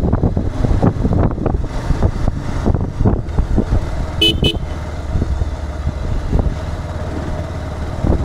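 City road traffic heard from a moving vehicle: steady engine and road rumble with wind buffeting on the microphone, and two short horn toots in quick succession about four seconds in.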